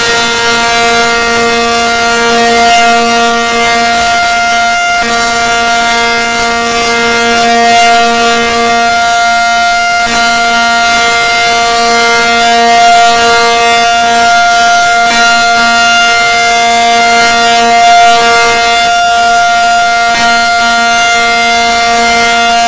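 Tornado warning siren sounding a loud, steady tone that holds its pitch, its loudness swelling slightly about every five seconds.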